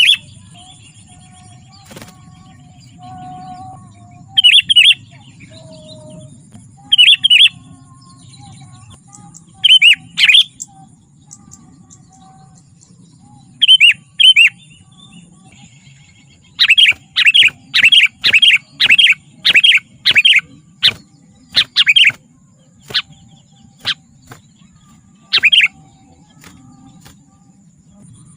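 Sooty-headed bulbul (kutilang) calling: short, loud chirps in pairs every few seconds, then a fast run of about a dozen notes, roughly two a second, that thins out again into single notes. A faint steady high tone runs behind the calls.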